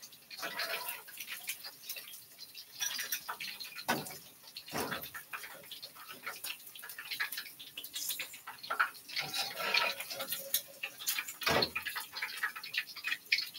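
Tongs clicking and tapping against a glass bowl as pieces of fried chicken breast are lifted in and set down in it: scattered light clinks, with a few heavier knocks.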